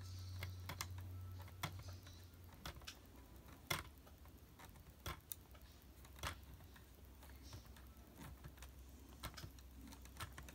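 Faint, irregular plastic clicks and taps from Lego pieces as a toy car is pulled up a tow truck's studded ramp.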